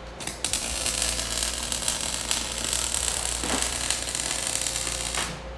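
Electric arc welding on a steel frame: the arc strikes about a third of a second in and crackles and hisses steadily, with spatter, for about five seconds, then cuts off suddenly as the weld is broken off.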